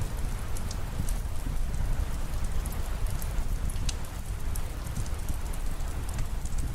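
Steady rain falling, with scattered sharp drop ticks and a low rumble underneath.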